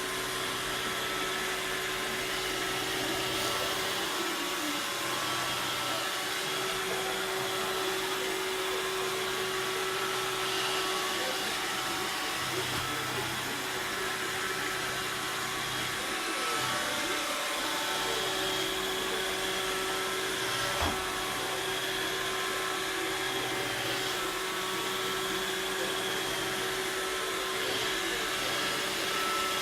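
Robot vacuum cleaner running steadily, its motor and brushes giving an even whirr with a constant whine. A single knock about two-thirds of the way through.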